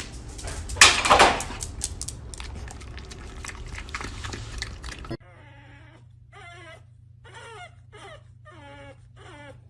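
A dog whimpering in a run of short, wavering cries over a low steady hum. Before it there is a loud, noisy stretch with a loud burst about a second in.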